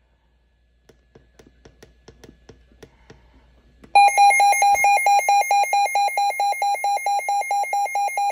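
Midland WR120 NOAA weather radio sounding its alert siren. A few faint clicks come first, then about four seconds in a loud electronic beep starts, pulsing rapidly at about five pulses a second.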